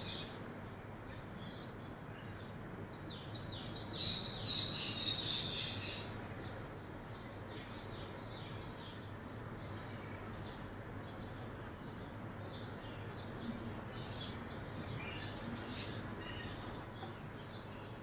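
Birds chirping, sparrows and an Indian parrot at their feed: scattered short high chirps over a steady background hiss, with a dense burst of rapid chirps about four to six seconds in and another sharp chirp near the end.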